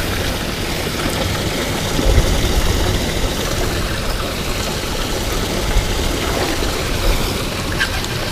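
Steady rushing noise of wind buffeting the action camera's microphone, with a low rumble underneath.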